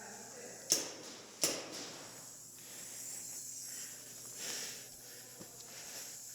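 Two shots from a compressed-gas paintball pistol, sharp pops about three-quarters of a second apart, in the first couple of seconds.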